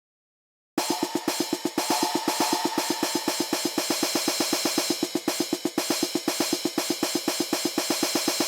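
Drum kit playing a fast, even roll of snare hits under a wash of cymbals, about eight to nine strokes a second, starting abruptly about a second in.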